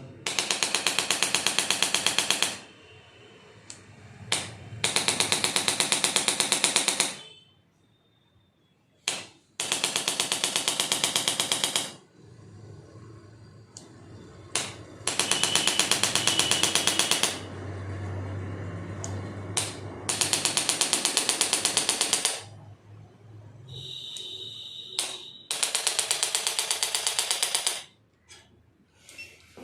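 Rapid mechanical tapping in six bursts of about two seconds each, roughly five seconds apart, with a few single clicks in the quieter gaps.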